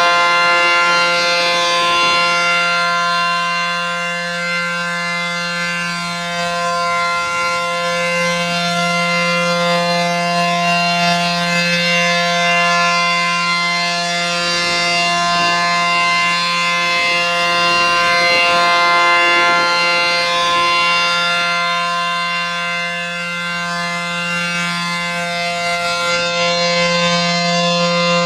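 ACA P-10 electromechanical outdoor warning siren sounding the steady Alert signal for a tornado warning: one unchanging wailing pitch that grows louder and softer in a slow, repeating cycle.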